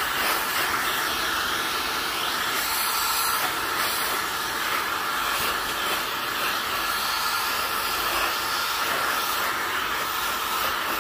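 Filter Queen Majestic vacuum cleaner running steadily, drawing air through its round dusting brush with a constant rushing hiss.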